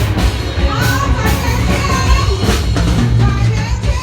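Live orchestra with drum kit playing a piece, with a steady low bass line and regular drum beats.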